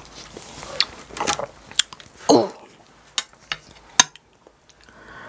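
Spoon clinking and scraping against a bowl of pork back-bone stew as broth is scooped and sipped, a run of separate clicks with a louder sip about two and a half seconds in and a sharp clink about four seconds in.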